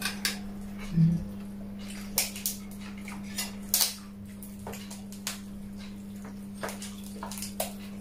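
Metal spoons and plates clinking and scraping in irregular short clicks as food is served and eaten from trays, over a steady low hum.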